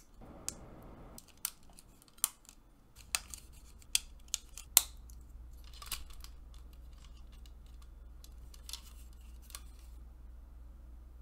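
Plastic model-kit parts being cut and handled: a dozen or so sharp separate clicks and snips with short pauses between them, and a brief rustle near the start. A faint low hum runs underneath from about two seconds in.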